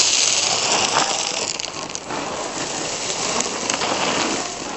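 Steady rain falling and pattering on surfaces.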